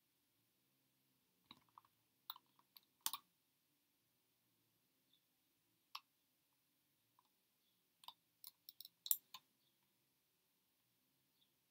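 Faint computer mouse clicks over near silence: a few about two to three seconds in, a single click midway, and a quicker run of clicks later on.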